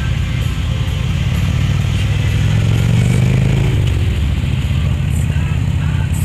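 Motorcycle engine running at road speed, a low rumble that rises and falls again about halfway through.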